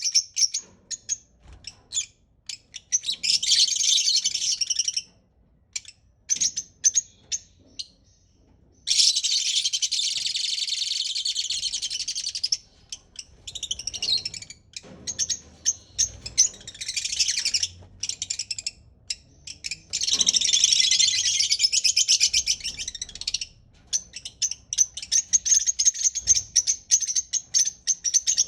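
Parrot chirping and chattering in rapid, high-pitched trills. Several dense bursts lasting a few seconds each come with short pauses between them.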